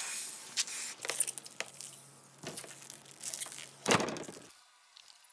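Aerosol can spraying adhesive with a steady hiss for about the first second, then scattered rustles and clicks as a thin brass sheet is handled, with a loud rustling flex of the sheet about four seconds in.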